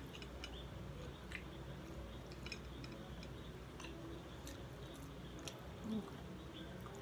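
Faint chewing: small wet mouth clicks and ticks from eating street food close to the microphone.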